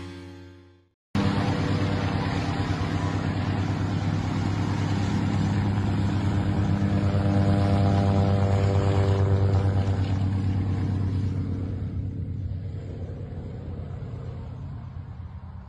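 Antonov An-2 biplane's nine-cylinder radial engine running at high power, starting abruptly about a second in. It is a steady low drone that rises a little in pitch around the middle, then fades over the last few seconds as the plane moves away.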